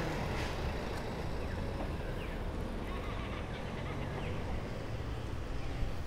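Main-street ambience: a steady low rumble of traffic with a few short, falling bird chirps.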